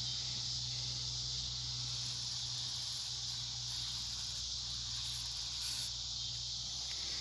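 Steady high-pitched hiss with a low steady hum beneath it, with no distinct event beyond a slight brief rise about six seconds in.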